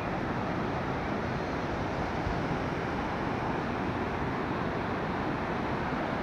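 Swollen river in flood rushing past, a steady unbroken noise with no let-up.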